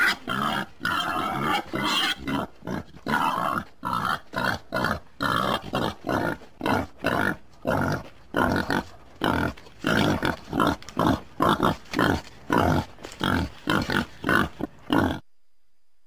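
Wild boar grunting over and over in short, rough bursts, about two a second, running together at first and then separating, until the grunts stop abruptly near the end.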